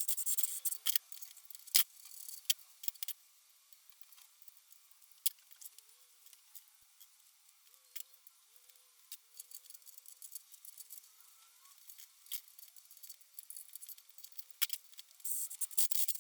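Scattered sharp clicks and light metallic jingling, busiest near the start and again near the end, with quieter stretches between.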